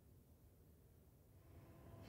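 Near silence with a faint low rumble; near the end a person's breath begins to come in, rising into a sigh.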